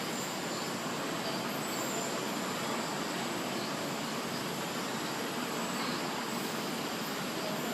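Steady machinery noise of a ceramic glazing line's conveyor and waterfall glaze section: an even hiss and rumble with a faint high whine, unchanging throughout.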